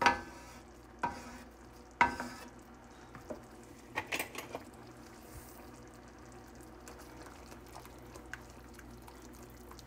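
A wooden spoon stirring a thick sauce with condensed cream of mushroom soup in a pan, knocking against the pan about once a second at first and a few times in quick succession about four seconds in. After that there is only a faint steady sound of the sauce simmering.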